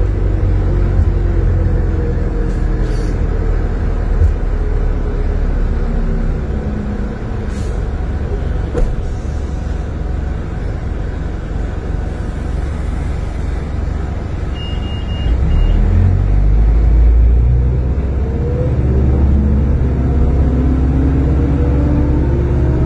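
Detroit Diesel Series 50 diesel engine of a 1995 New Flyer D40LF transit bus, heard from inside the passenger cabin. The engine note falls as the bus eases off over the first several seconds. About two-thirds of the way through, the engine grows louder and its pitch rises as the bus accelerates.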